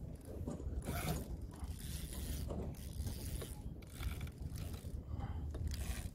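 Fishing reel winding in line under the load of a hooked fish, in intermittent spells over a steady low rumble.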